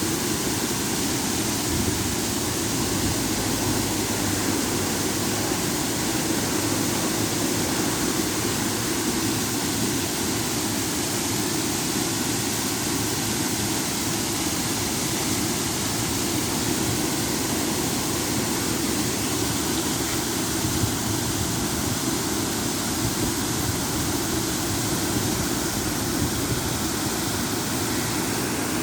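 Small river waterfall: water pouring steadily over a drop, a continuous even rushing.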